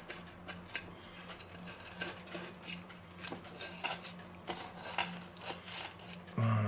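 Table knife and fork scraping and clicking against a ceramic plate while cutting through a slice of toast, in small irregular strokes. A short low hum sounds near the end.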